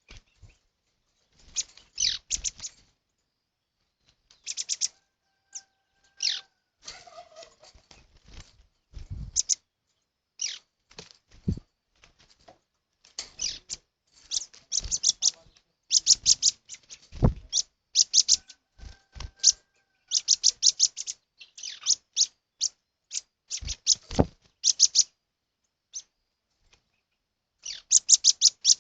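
Small birds chirping: many short, high chirps in quick clusters, joined now and then by a faint, steady whistled note. A few low thumps fall among the chirps.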